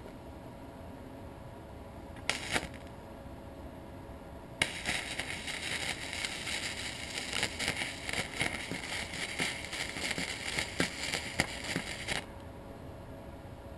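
Flux-core MIG welding arc crackling and sputtering on galvanized steel tube. A brief strike comes about two seconds in, then a steady weld of about seven seconds that cuts off sharply.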